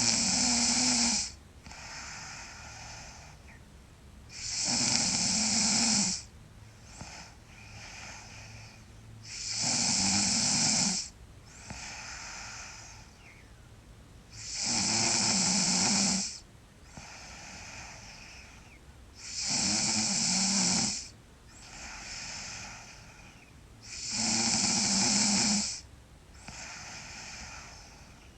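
A sleeping girl snoring loudly, a long snore about every five seconds with a softer breath between each. Six snores, each lasting about a second and a half.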